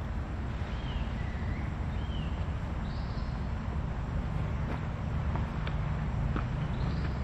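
Steady low outdoor rumble, like wind buffeting the microphone. A few short high chirps sound in the first three seconds, and a few faint clicks come later.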